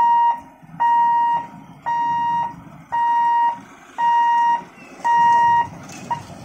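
Level-crossing warning buzzer beeping about once a second, a single steady tone in six long beeps, while the electric boom barrier lifts to open the road. It stops near the end, over a low mechanical rumble.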